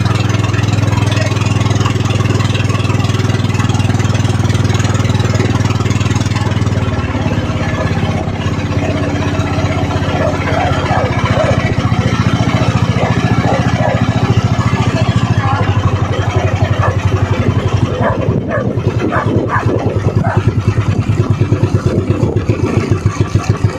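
Small engine running steadily under way, with a quick even firing beat. Its note settles a little lower about seven seconds in, and the beat grows more distinct in the last few seconds.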